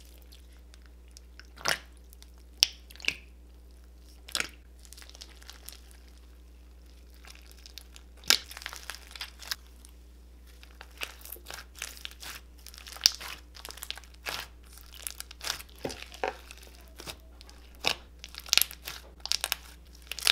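Hands kneading and folding a big tub of mixed slimes studded with foam beads, giving irregular pops, clicks and crackles. They come only now and then at first, then thicker from about eight seconds in.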